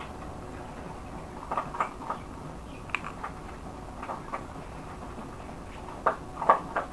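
Close-up chewing of avocado toast: scattered soft crunches and wet mouth clicks in small clusters a second or two apart, the loudest near the end.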